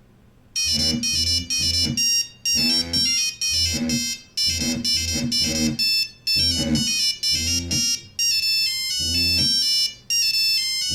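Mobile phone ringtone melody played through the phone's speaker, starting about half a second in: a synthesized tune with a bass line, in short phrases with brief gaps between them.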